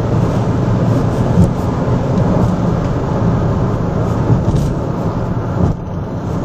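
Inside the cabin of a Honda City GN2 cruising at about 140 km/h with the engine turning around 3,000 rpm: a steady low rumble of road, wind and engine noise. The noise dips briefly near the end.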